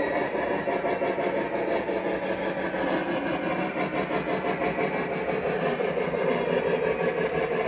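Lionel Legacy O gauge PRR USRA 2-8-8-2 model steam locomotive running, its onboard sound system playing steam chuffing over the hum of its motor and wheels on three-rail track. It gets a little louder near the end as the engine comes closer.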